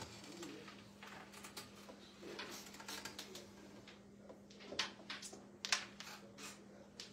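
Light scattered clicks and taps of a carrom striker being set down and shifted on the board while a shot is lined up, the two loudest about five and six seconds in, over a steady low hum.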